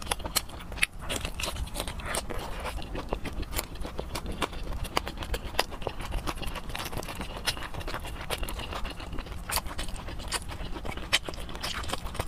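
Close-miked wet chewing and lip smacking while eating soft braised meat, with many irregular sharp mouth clicks.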